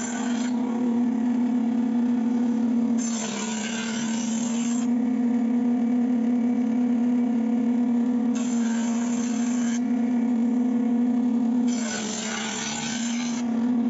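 Woodworking jointer-planer running with a steady motor hum, as the edge of a wooden door panel is pushed across its cutter block. Each pass adds a loud hiss of planing. A pass ends just after the start, and three more come about 3 s in, about 8 s in and near the end.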